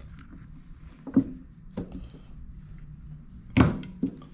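Metal grinder parts, the burr holder and burr of a Mythos Basic, handled and set down on the bench: a few knocks and light metallic clinks, the loudest knock about three and a half seconds in.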